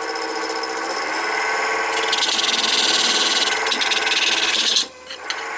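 Wood lathe running with a gouge cutting into the spinning wood: a rough scraping hiss over the steady hum of the lathe. The cut breaks off briefly near the end as the tool leaves the wood.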